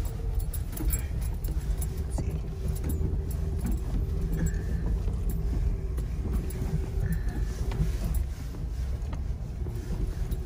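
Jeep Wrangler driving slowly over a sandy trail, heard from inside the cab: a steady low engine and road rumble with frequent small rattles and clicks from the body and interior.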